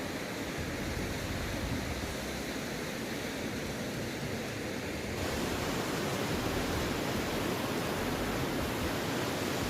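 Waterfall rushing in a steady roar of falling water, growing a little louder and brighter about halfway through.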